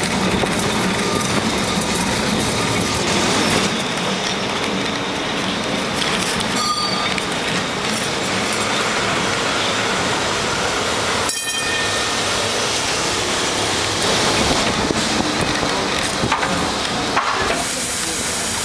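Lisbon street tram running on its rails, heard from on board as a steady rolling rumble and rattle.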